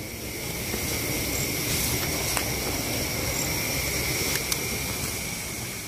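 Night insects trilling steadily at a high pitch over a constant rushing hiss, with a few faint clicks.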